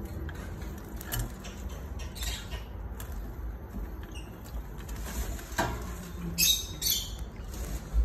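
Blue lovebird, wet from its bath, shaking and fluffing out its feathers and flapping. The sound is a few short, sharp feather-rustling flutters, the loudest two close together about three quarters of the way in.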